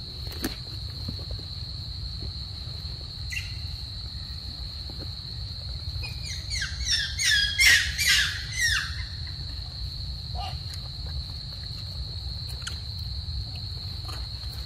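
Steady high trilling of crickets in a night-time insect chorus. Around the middle comes a run of about six quick, high calls, each falling sharply in pitch; this is the loudest thing heard.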